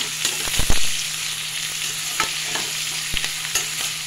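Sliced bitter gourd, onion and green chillies sizzling in coconut oil in a steel kadai as a metal spatula stirs them, scraping and knocking against the pan several times; the loudest knock comes under a second in.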